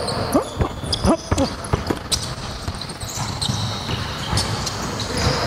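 A basketball being dribbled on a hardwood gym floor: repeated sharp bounces, irregular in pace, with sneakers squeaking on the court.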